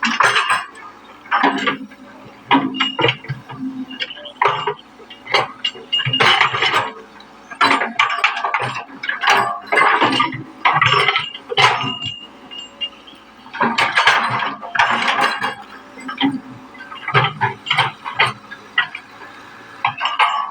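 Excavator at work: irregular metallic clanks and rattles, one after another, over a faint steady engine drone.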